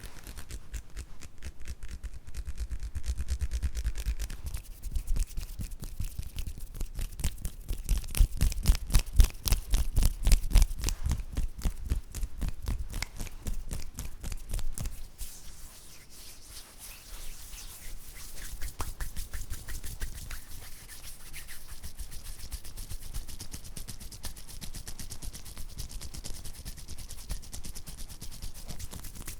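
Close-miked ASMR hand and mouth sounds: a fast, dense run of crisp clicks and rubs. It is loudest about a third of the way in, then thins out and gets quieter past the middle.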